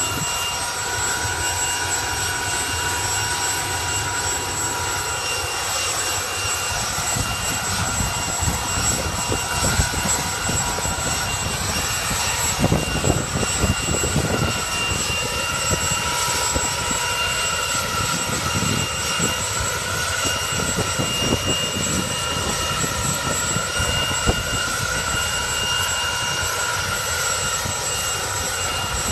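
Erickson S-64 Air-Crane helicopter running on the ground with its rotor turning. Its turbine engines give a steady high whine, and a low, uneven rumble from the rotor builds after several seconds.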